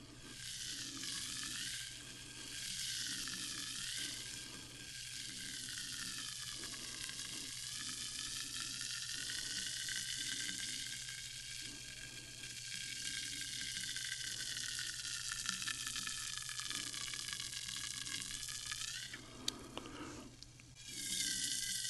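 Sparkling water fizzing steadily, a continuous hiss of bursting bubbles that dips briefly near the end.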